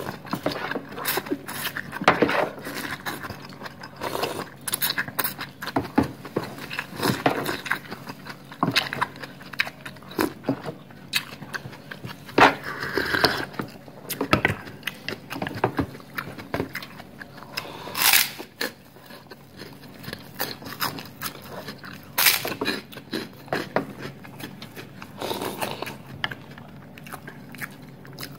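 Close-up eating sounds: a plastic spoon scraping a small ceramic bowl, and the chewing and crunching of mouthfuls of chicken soup and fried corn fritter, heard as many irregular clicks and smacks.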